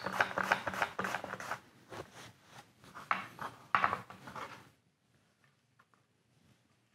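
Butternut squash pushed across a mandoline blade: a quick run of short slicing strokes that thins out to a few separate strokes and stops about four and a half seconds in.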